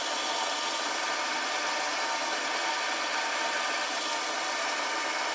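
Small benchtop lathe turning mild steel dry at 250 RPM under power feed, a C-2 carbide insert taking a ten-thousandths cut. It makes a steady, even cutting hiss with the machine running.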